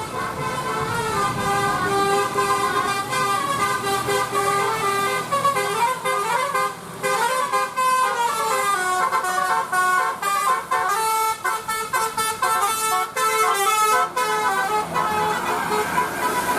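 A bus's Basuri telolet horn playing a tune: several horn tones step up and down in pitch together, then break into quick, short notes in the second half.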